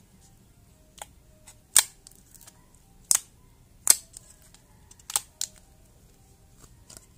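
Fingers squeezing glossy slime out of a thin plastic cup, making about five sharp clicking pops spread over several seconds, the loudest about two and four seconds in.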